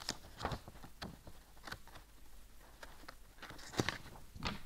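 Scattered soft clicks and paper rustles as a printed service booklet is handled and its pages turned, with a sharper knock a little before the end.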